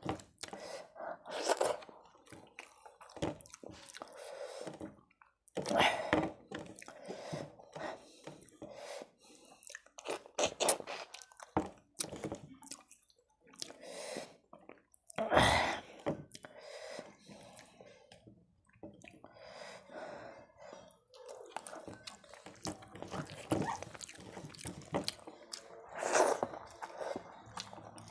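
Close-miked sounds of a person eating rice and fish curry by hand: chewing and wet mouth sounds, with fingers squishing and mixing rice on a plate in between. The sounds come irregularly, with a few louder smacks among them.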